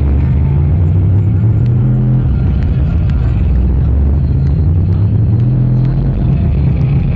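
Techno played loud over an arena sound system. Deep, sustained bass synth tones dominate, shifting pitch every couple of seconds, with faint ticking percussion above.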